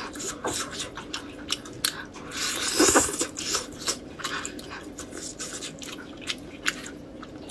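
A person chewing and tearing roast chicken meat apart by hand: many short sharp clicks of mouth and meat, with a louder bout about three seconds in.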